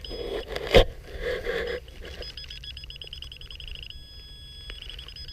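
Digging in soil, with scraping and a sharp knock about a second in. Then, from about two seconds in, a metal detector's rapid, high electronic beeping over a target.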